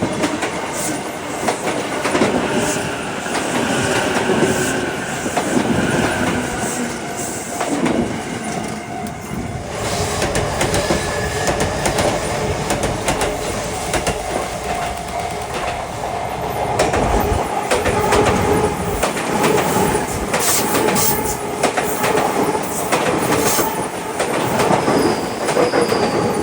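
Electric commuter train running past on the track, wheels clattering over the rail joints.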